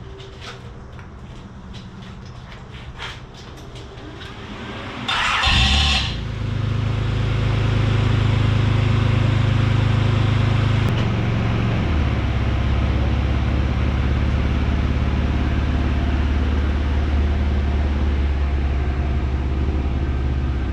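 Nissan 300ZX (Z31) V6 engine cranked and started about five seconds in, after a few light clicks. It then runs steadily, and its note drops lower a little before halfway.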